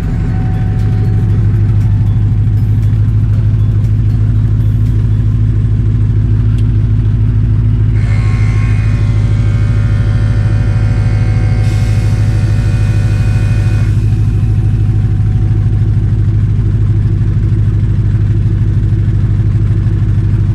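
Loud steady low hum with a fast even pulsing: the newly installed air-suspension compressor of a 2003 GMC Yukon Denali running, being tested by pumping up the air shocks. A set of steady higher tones joins it for about six seconds midway.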